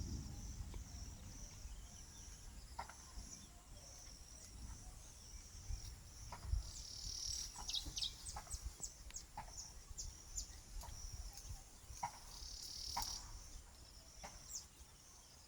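Insects keep up a steady, pulsing high-pitched chorus. About halfway in, a bird adds a quick run of high, falling chirps, and other short calls are scattered throughout.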